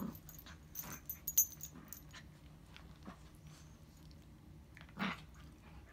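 Small curly-coated dogs playing: collar tags jingling in quick clicks during the first two seconds, and one short dog vocalisation about five seconds in.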